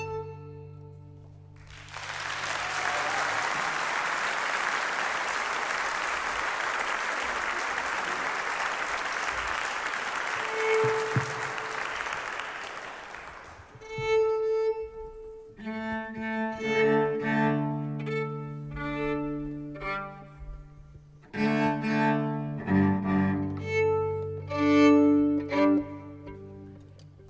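The last chord of a folk tune fades, then applause runs for about twelve seconds. After it, fiddles, a bowed bass and an accordion play short notes over a low steady drone.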